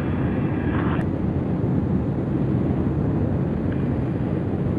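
Steady low roar of aircraft noise in flight, heard from an aircraft flying alongside an F-35. A short radio-like voice fades out with a click about a second in.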